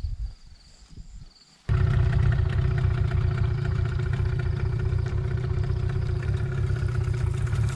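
A few faint knocks, then an engine suddenly starts sounding about two seconds in and runs steadily, with a low rumble and a steady hum.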